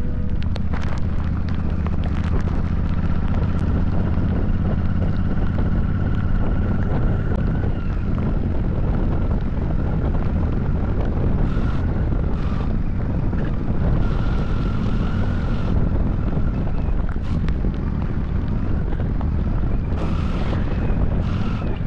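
Royal Enfield Super Meteor 650's parallel-twin engine running at a steady cruise under heavy wind buffeting on the microphone, with several brief hissing bursts in the second half.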